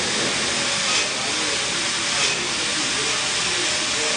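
Electric welding arc crackling and hissing steadily, with a couple of sharper pops about a second in and a little after two seconds.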